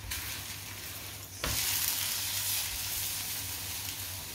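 Mooli paratha sizzling in ghee on a hot tawa. About a second and a half in, it is flipped over and the sizzling jumps suddenly louder, then slowly eases off.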